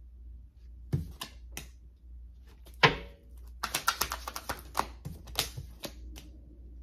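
Tarot cards being shuffled by hand: scattered sharp snaps and slaps of the cards, with a quick run of rapid card flicks about three and a half seconds in.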